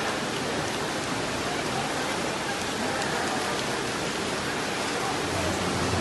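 Steady splashing of several swimmers racing butterfly, merged into the echoing din of an indoor competition pool hall. A low hum joins in near the end.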